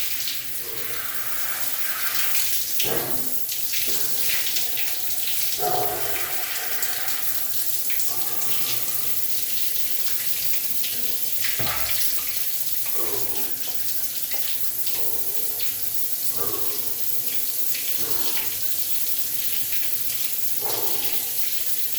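Running water splashing steadily, with uneven changes in the splash.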